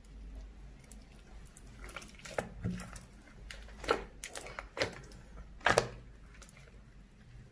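Slime being squished and pulled by hand, giving a run of sticky pops and crackles, the loudest a little before the end.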